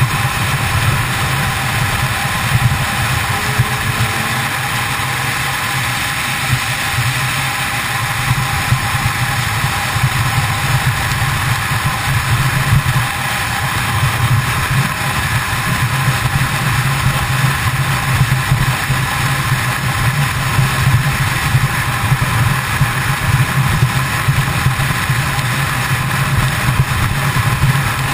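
Kawasaki ZX-10R sportbike's inline-four engine running at a steady highway cruise, with wind rushing over the microphone.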